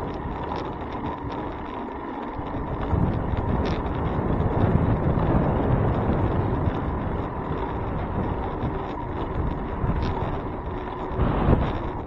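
Wind buffeting the microphone of a handlebar-mounted camera on a moving bicycle, with road rumble from the ride and a few sharp clicks or knocks, as from bumps, scattered through it.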